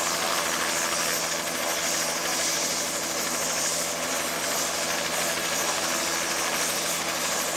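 A light helicopter running on the ground with its rotor turning: a steady engine whine and rotor rush that holds at an even level throughout.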